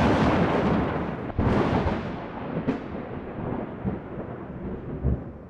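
Close thunder: a rumble carries on from a sharp clap, a second sharp crack comes about a second and a half in and a smaller one a little later, then the rumble rolls on and fades.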